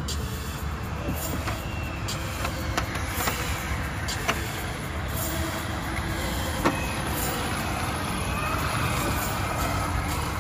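Steady rumble of road traffic passing on a nearby highway, with a couple of sharp clicks about four and seven seconds in.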